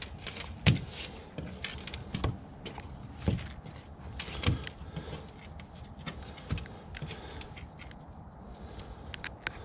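Dead whiting being shifted and laid out by hand on a plastic table: scattered soft knocks and slaps a second or so apart, over a light background hiss.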